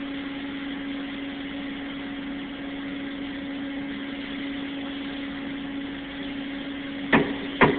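Steady machine hum with a constant droning tone; near the end, two sharp knocks start a run of evenly spaced strikes about two a second. The knocks are an orange rubber mallet tapping workpieces down in a milling vise until the parallels underneath stop sliding, which shows they are seated.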